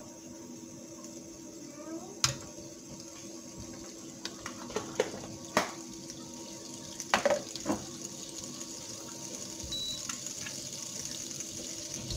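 Margarine melting and sizzling in a nonstick frying pan, a steady hiss that grows stronger in the second half. A few sharp clicks and knocks come about two, five and seven seconds in, the loudest near two seconds.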